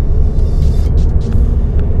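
Suzuki Swift Sport (ZC32S) under way, a loud, steady low rumble of engine and road noise with a few faint ticks.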